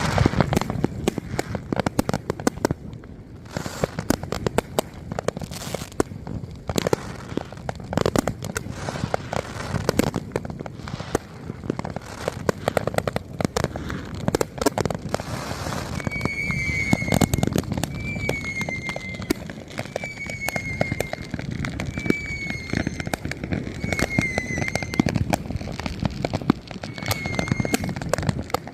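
Many consumer fireworks and firecrackers going off at once: a dense, unbroken crackle of bangs and pops. From about halfway through, a short high-pitched wavering tone repeats roughly once a second over the bangs.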